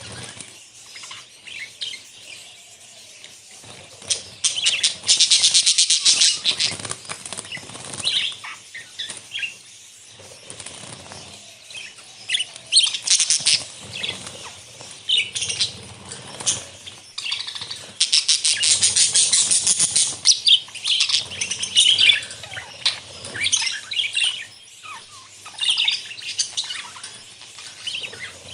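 A flock of budgerigars chirping and chattering. Their high chirps run on without a break, with three louder, busier stretches: about four seconds in, in the middle, and about two-thirds of the way through.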